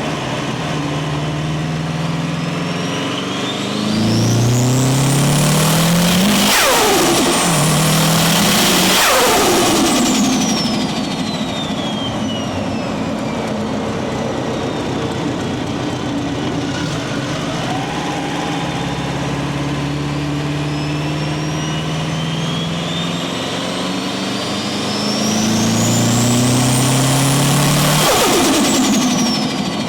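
Subaru WRX's turbocharged engine pulling hard through the gears twice, the turbo's whistle climbing steeply with each pull and sweeping back down when the throttle closes. With no blow-off valve and a narrowed 3-inch intake pipe, each lift-off brings turbo flutter from the compressor. Between the pulls the engine cruises more steadily.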